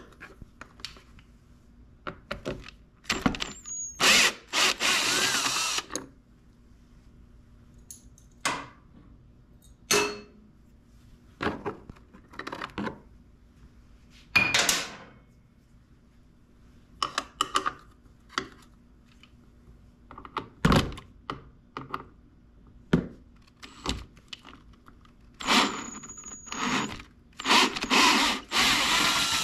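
A power drill runs in short bursts, backing fasteners out of an ATV's plastics and frame, with two longer runs about four seconds in and near the end. Scattered clicks and clunks of tools and parts being handled fall between them.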